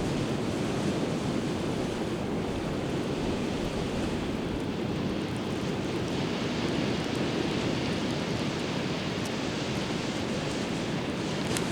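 Steady rush of ocean surf and wind, with a couple of faint clicks near the end.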